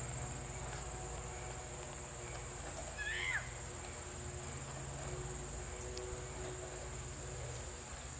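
Steady high-pitched insect chorus, with a brief high call about three seconds in.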